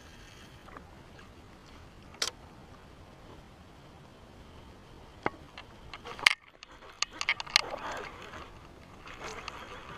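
Scattered sharp clicks and taps from a baitcasting reel and rod being handled and cranked, over faint background noise. There is a single click about two seconds in, a louder one around six seconds, and a quick run of clicks after that.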